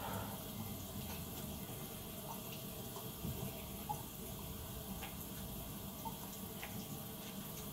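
Faint sounds of a person drinking water from a glass, a few small soft clicks over a steady low background hiss.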